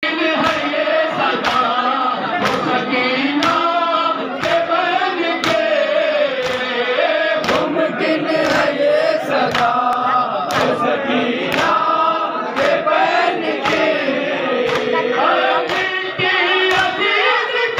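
Men's voices chanting a noha lament together, with a sharp slap of chest-beating matam landing on each beat about once a second.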